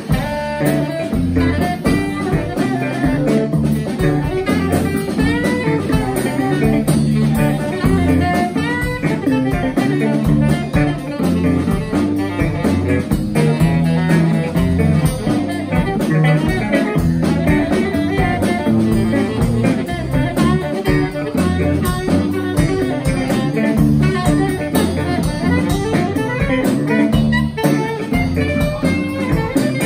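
Live jazz trio of saxophone, electric bass and drum kit playing an instrumental tune, the bass line prominent.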